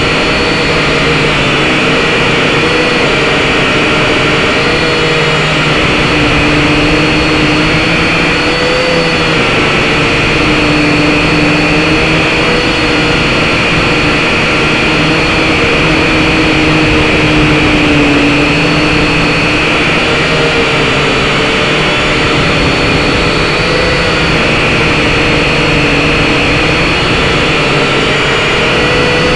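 SYMA X5HC-1 quadcopter's small brushed motors and propellers running, heard from its own onboard camera: a loud, steady whine whose pitch wavers slightly as the drone holds and shifts its position.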